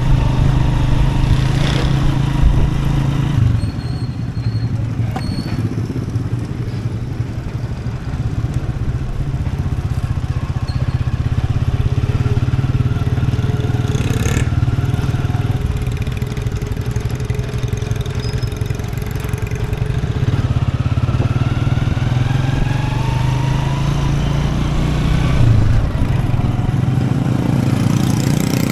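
Motorcycle engine running while riding, heard close up from the rider's seat. The engine note drops about three and a half seconds in and picks up again near the end.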